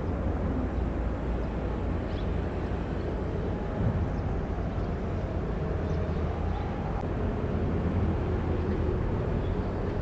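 Diesel engine of heavy construction machinery running steadily with a low rumble, with faint higher tones coming and going over it.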